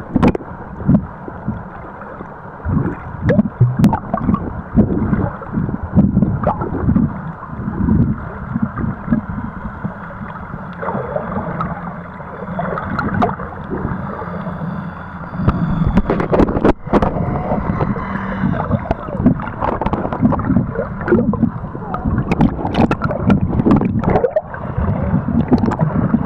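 Water stirred by a snorkeler's swimming strokes, heard with the microphone underwater: muffled, irregular sloshing and thumping with bubbling, and a few sharp clicks.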